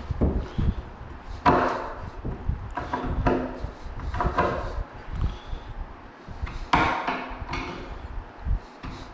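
Knocks and clatter of particleboard cabinet panels and parts being handled during flat-pack cabinet assembly: a series of sharp wooden knocks with a short ring after each, the loudest about a second and a half in and near seven seconds, over low bumping of the panels being moved.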